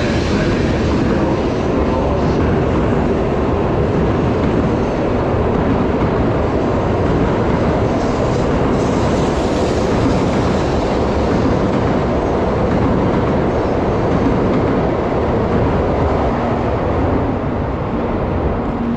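Shinkansen bullet train pulling out past the platform: a steady, loud rumble of wheels and rushing air along the length of the train, easing a little near the end as the last cars go by.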